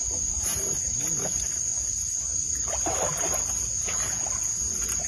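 Steady, high-pitched buzzing of insects over a low rumbling noise.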